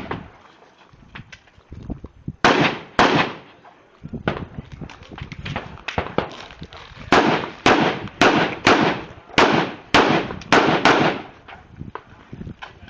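Gunshots from a rifle or shotgun: two shots about half a second apart, then after a pause a fast string of eight shots about half a second apart, each cracking and dying away quickly.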